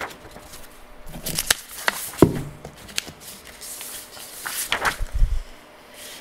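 Scattered clicks, knocks and rustles of things being handled at a lectern during a pause, with a brief low voice-like murmur about two seconds in.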